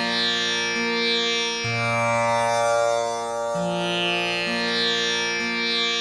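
Tanpura drone: its strings are plucked one after another in a cycle that repeats about every four and a half seconds, sounding a sustained Sa drone rich in overtones.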